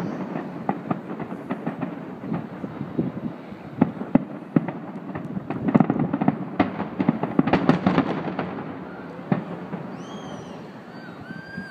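Fireworks finale: a rapid barrage of distant aerial shell bursts, booms and crackling. It is densest around the middle and thins out toward the end.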